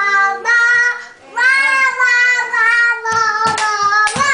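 A woman singing a tune in a high voice, long held notes with a short break about a second in, and a few hand claps near the end.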